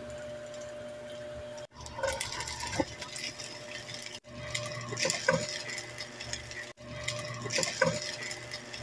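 Fried rice frying in a nonstick pan: a steady sizzle with spatula scrapes and knocks against the pan, and rice being tipped in near the end, over a faint steady hum. The sound cuts off abruptly a few times.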